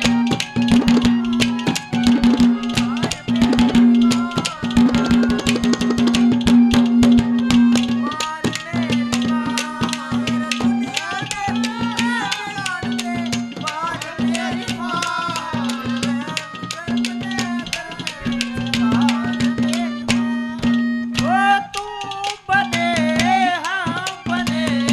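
Haryanvi ragni folk accompaniment without words: a hand drum played in fast, dense strokes over a harmonium, with a low held note that breaks off and comes back every second or two.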